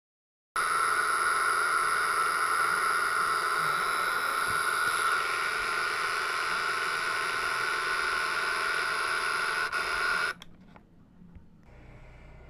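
Electronic engine-sound module in a miniature bus model, playing a steady running bus engine through a small, tinny speaker. It starts about half a second in and cuts off suddenly about ten seconds in, leaving a faint hum.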